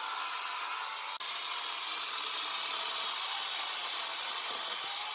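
Electric angle grinder fitted with a chainsaw adaptor, running steadily at speed with a high whirring hiss. There is a brief break about a second in.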